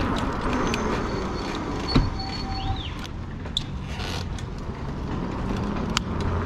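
Steady rumble of wind and road noise while riding an e-bike, with a sharp click about two seconds in and a few fainter ticks later.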